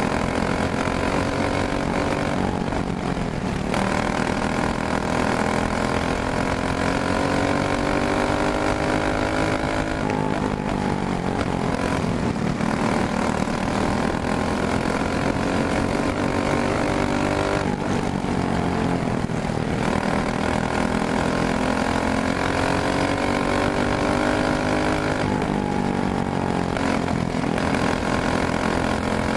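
Briggs & Stratton Animal single-cylinder kart engine heard close up from the kart itself, running hard at high revs, its pitch falling into each turn and climbing back up along the straights, about every eight seconds.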